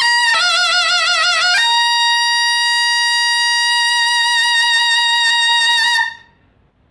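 Solo taepyeongso, the Korean conical double-reed shawm, playing: a lower note with a wide, wavering vibrato, then a jump to a long held high note that lasts about four seconds and stops about six seconds in, with a new note starting just at the end.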